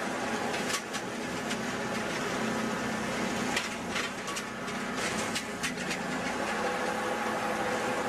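Engine of a tree baler running steadily, with a few short clicks and rattles as fir trees are pushed through the baler's ring.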